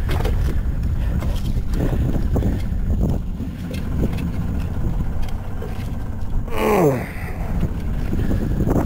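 Low, steady rumble of a small boat's outboard motor running at idle, with a short falling-pitched cry about seven seconds in.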